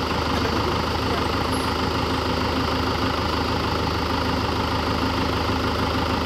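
Mahindra 415 DI tractor's four-cylinder diesel engine idling steadily.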